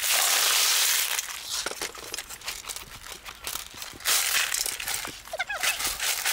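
Crushed ice poured from a bamboo basket into an aluminium basin, a loud rattling rush for about the first second. Then crunching and clinking as gloved hands stir the ice, with another rush about four seconds in.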